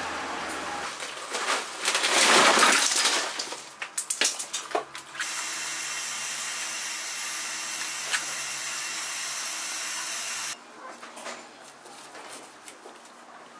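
A run of work sounds. A truck engine idles briefly at the start, then come a loud rushing noise and a series of knocks. A steady hiss runs for several seconds, and near the end, after a sudden drop, a kitchen knife ticks and scrapes on a cutting board as it cuts through a flounder.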